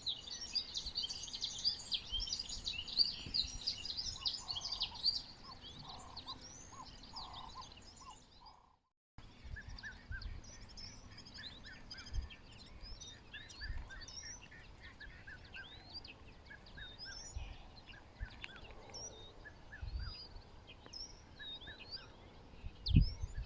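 Early-morning chorus of many small birds chirping and twittering, densest in the first several seconds and sparser after a brief break.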